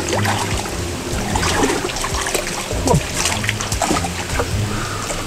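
Muddy stream water splashing and sloshing around a person wading waist-deep, under background music with a steady low pulse.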